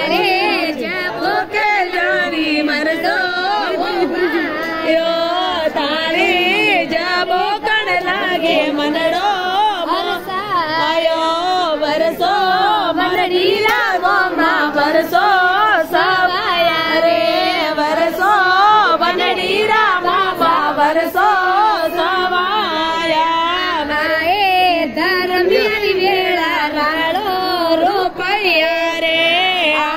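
A group of women singing a wedding folk song together in chorus, with wavering, sustained voices.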